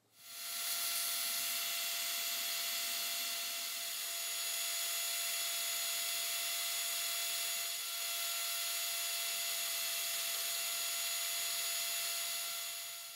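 Electric drill motor starting up and running at a steady speed, spinning a small steel hole-punch pin against fine sandpaper: a steady motor whine over a sanding hiss, with a slight dip about eight seconds in.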